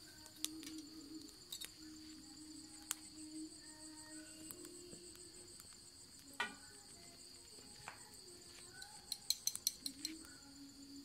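Crickets chirping steadily, a continuous high, rapidly pulsing trill, with scattered sharp clicks and a quick cluster of clicks near the end.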